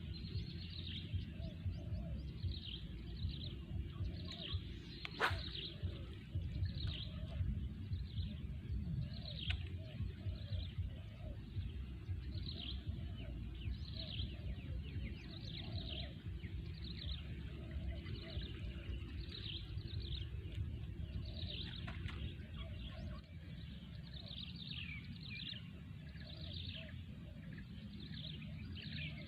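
Birds calling outdoors: short chirps that sweep downward in pitch, repeating about once a second, over a steady low rumble. A single sharp click sounds about five seconds in.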